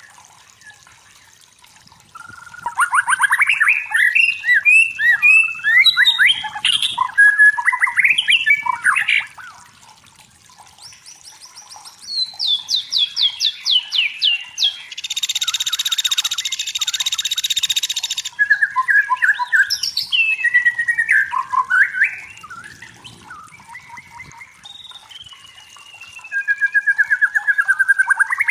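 White-rumped shama (murai batu) singing, starting about two seconds in: a varied run of whistled phrases, fast trills and sweeping notes, with a harsh buzzing rattle of about three seconds midway.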